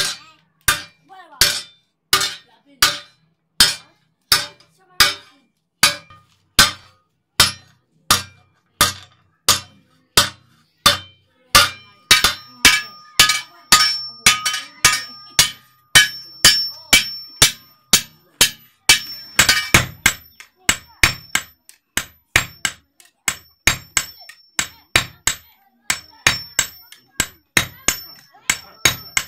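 Hammers striking a scrap-steel dundun bell blank on an anvil as it is forged, in even blows about one and a half a second. From about twelve seconds in, the metal rings on after each blow. Near the end two hammers strike in turn, in a quicker rhythm.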